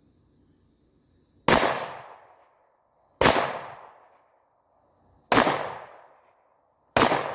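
Four single gunshots fired at a slow, uneven pace, one to two seconds apart, each echoing and dying away over about a second.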